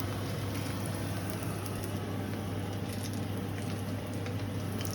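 Steady hiss of cooking on the stove, with a constant low hum underneath and a few faint ticks.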